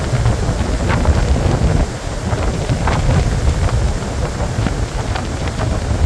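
Blizzard wind blowing hard and buffeting the microphone with a loud, steady low rumble.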